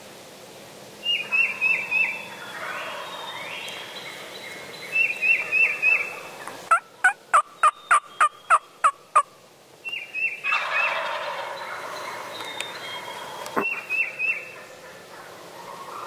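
Wild turkey gobblers gobbling several times, each gobble a quick rattling burst of notes. Near the middle comes a run of eight sharp, evenly spaced turkey yelps.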